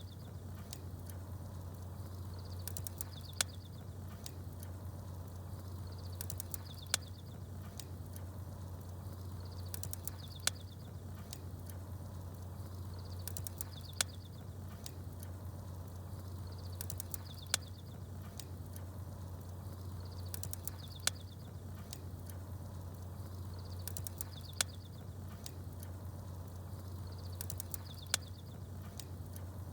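Campfire crackling with sharp pops, and small birds chirping in short high bursts over a steady low drone. Pops and chirps repeat in the same pattern about every three and a half seconds, like a short recording played in a loop.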